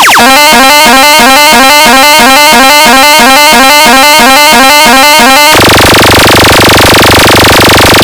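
Heavily clipped electronic competition track played at full gain: rapid repeating horn-like synth stabs, switching about five and a half seconds in to a harsh, dense buzzing noise with a low hum, then back to the stabs near the end.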